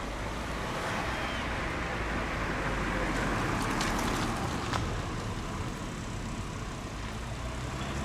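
A road vehicle going past, its engine and tyre noise swelling to a peak about four seconds in and then fading, over a steady low engine rumble.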